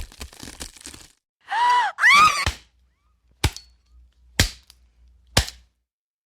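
Sound-effect sequence: a crackling crunch, then two short, loud pitched squeals that rise and fall, followed by three sharp cracks about a second apart.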